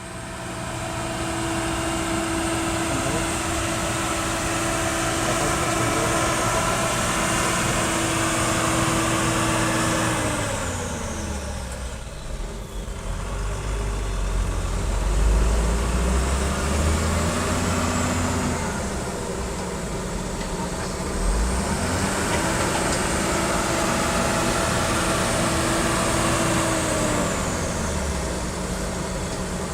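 Kobelco SK140 hydraulic excavator working: its engine and hydraulics run with a steady whine. The pitch drops about ten seconds in, giving way to a deeper rumble with a couple of knocks, rises again around twenty seconds and drops once more near the end.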